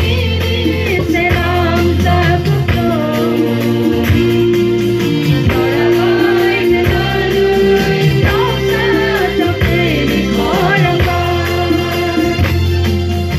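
Mixed choir of women and men singing a gospel hymn together, with steady held bass notes underneath.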